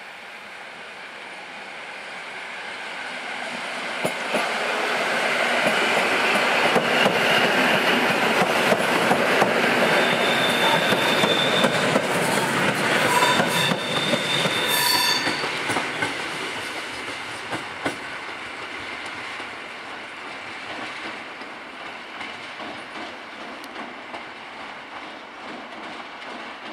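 EN57 electric multiple unit approaching and passing close by, then running away into the distance, its wheels clattering over rail joints and points. It grows louder for the first several seconds, with a brief high-pitched squeal at the loudest part in the middle, and then slowly fades.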